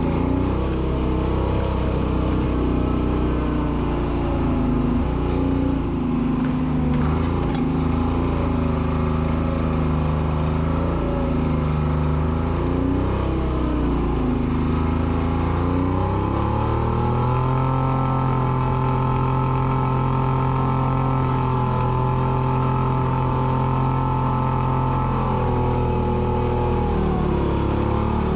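Treefarmer log skidder's diesel engine working under load while dragging a hitch of logs, its pitch rising and falling with the throttle. A little past halfway it revs up and holds a higher, steady speed for several seconds, then drops back near the end.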